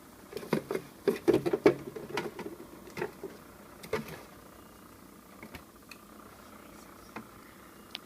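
Condiment bottles and jars knocking and clinking against each other while someone rummages through a fridge: a quick run of knocks in the first few seconds, then a few scattered light clicks.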